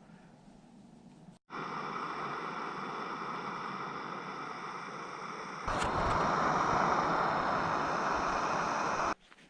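Portable camping gas burner running with a steady hiss. A click about four seconds in, after which it runs louder, then it stops suddenly.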